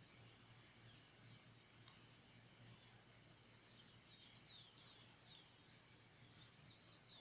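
Near silence with faint, high bird chirping in the background, many short falling chirps that grow busier about halfway through.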